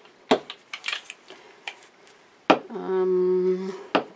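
Sharp clicks and taps of painting supplies being handled on a work table, with a steady pitched hum lasting about a second, about three seconds in.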